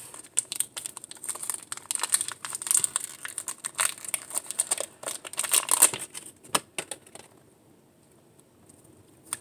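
Clear plastic wrapper crinkling and tearing as it is pulled open by hand, a dense run of small crackles that stops about seven seconds in.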